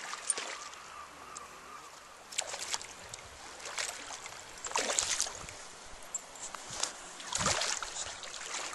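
Hooked silver (coho) salmon thrashing at the surface of shallow river water, splashing in several irregular bursts, the loudest about five seconds in.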